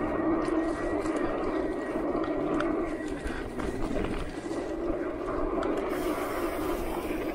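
Electric mountain bike ridden over a dirt singletrack: a steady hum from the bike with tyre rumble and a few light rattles over bumps. A brighter hiss joins about six seconds in.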